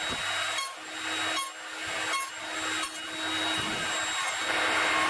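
Table saw running while its blade nibbles out the waste between two kerfs to clear a box-joint socket: a steady motor hum and blade hiss, with several short cutting passes in the first three seconds, then a steadier, slightly louder run.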